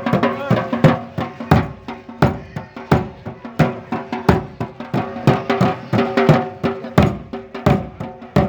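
Music with a steady percussion beat, about three strikes every two seconds, over held tones.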